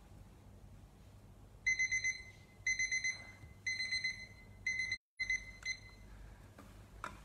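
Digital kitchen timer alarm going off as its countdown reaches zero: groups of rapid high beeps about once a second, five groups in all, starting about two seconds in and stopping about six seconds in.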